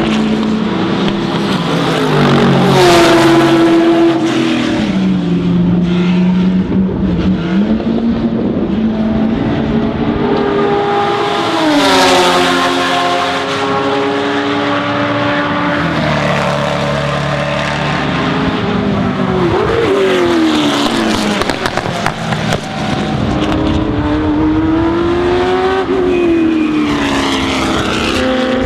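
Ford GT40 V8 race engines at racing speed, their pitch climbing through the gears and dropping on lifts and downshifts again and again; at times two engines are heard at once.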